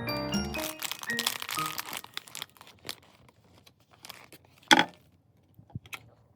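Background music ending about two seconds in, then sparse crinkling and clicks of blind-box packaging being handled, with one loud crackle near the end.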